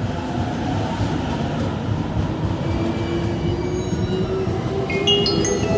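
Tokyo Metro 05 series subway train accelerating away from a station: steady rumble of the wheels and cars, with a traction motor whine that slowly rises in pitch from about halfway through and then climbs in a series of stepped jumps near the end.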